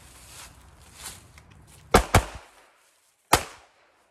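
Glock 42 .380 ACP pocket pistol fired three times: two quick shots close together about two seconds in, then a third a little over a second later.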